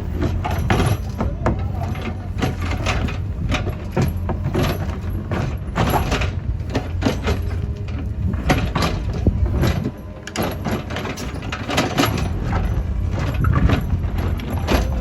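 Cat 432F2 backhoe loader's diesel engine running steadily, with repeated clanks and knocks from its digging gear at work. The engine briefly drops off about two-thirds of the way through.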